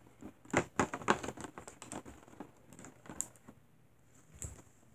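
Light clicks and knocks of plastic toy markers and a plastic tray being handled, busiest in the first second and a half, with a sharper click past the three-second mark and a soft thump near the end.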